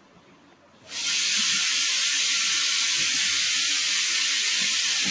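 Loud, steady hiss of noise that switches on abruptly about a second in and holds at an even level.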